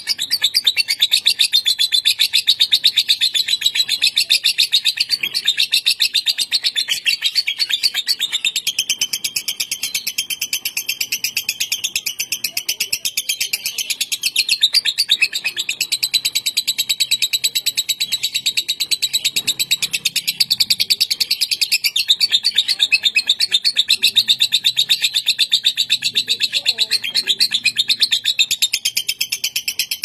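Fischer's lovebird giving its 'ngekek' chatter: a long, unbroken run of rapid high-pitched notes, the continuous 'konslet' song prized in Indonesian lovebird contests.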